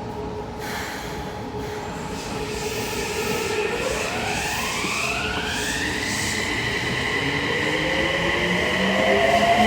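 Toei Mita Line subway train pulling out, its inverter-driven traction motors whining upward in pitch as it accelerates: the whine climbs and levels off about six seconds in, then a second set of rising tones starts near the end, over the rumble of the train running.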